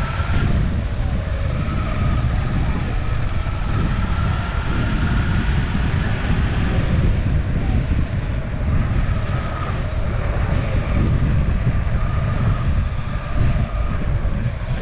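Electric skateboard riding fast on asphalt: a steady rush of wind over the microphone and rolling wheels, with a faint high motor whine that rises slightly in pitch at times and fades in and out.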